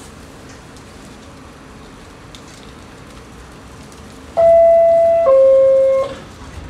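R46 subway car's door-closing chime: two loud descending tones, each about a second long, sounding about four seconds in over a steady background hiss.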